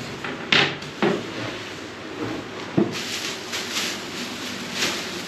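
Table panels and frame parts knocking as they are set down on the floor: three sharp knocks, the loudest about half a second in. In the last couple of seconds, packing plastic rustles.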